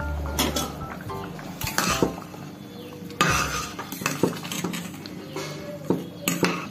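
A metal ladle stirring rice in a stainless steel pot of boiling water, clinking and scraping against the pot at irregular intervals.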